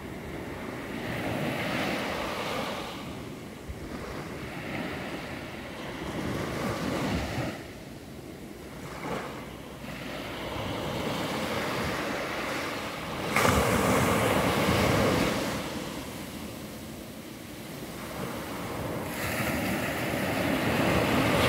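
Small waves breaking and washing up a sandy beach, the surf swelling and fading every few seconds, with the loudest wave crashing in suddenly about two-thirds of the way through.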